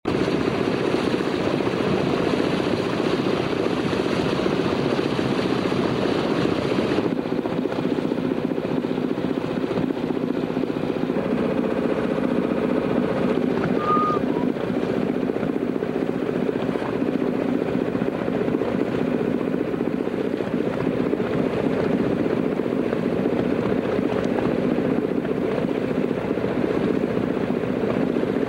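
Steady engine drone with several fixed low tones; a higher hiss over it drops away about seven seconds in.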